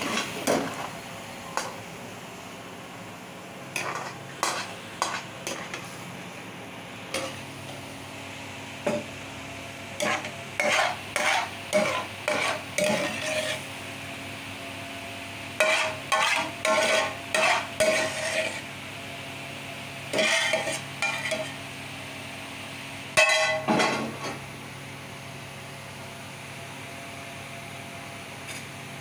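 A metal ladle stirring and scraping thick curry gravy in a metal kadai, heard as runs of quick scraping strokes against the pan with pauses between them. A steady low hum runs underneath, and the last few seconds hold only the hum.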